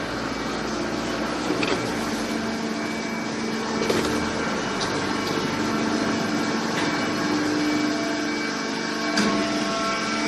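Baling press running: a steady machine hum with several held tones over a hiss, and a few short knocks scattered through it.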